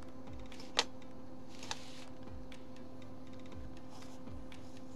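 Light clicks of 3D-printed plastic kit pieces being handled on a cutting mat: one sharp click about a second in and a softer one shortly after, over a steady low hum.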